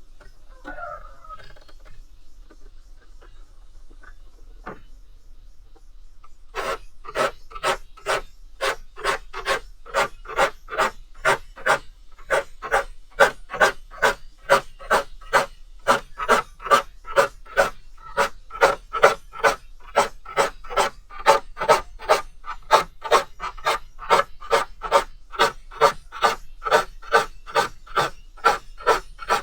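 A hand file rasping across the teeth of a crosscut handsaw, sharpening it: after a few quiet seconds with faint clinks, steady, even strokes begin about six seconds in, about two a second.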